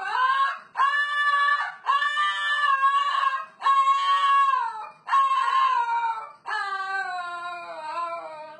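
A pet's long, drawn-out yowling calls, about seven in a row with short breaths between them. The last two slide gradually down in pitch before stopping.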